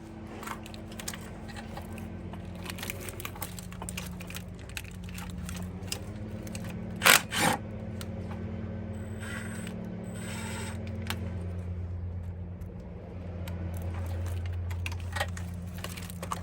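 Metal hand tools clicking and clinking as a socket ratchet works loose the AC compressor bolts, with two sharp metallic clanks about seven seconds in. A steady low hum runs underneath.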